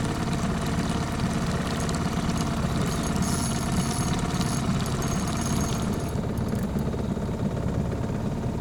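Boat engine idling: a steady low hum with a few even tones over it.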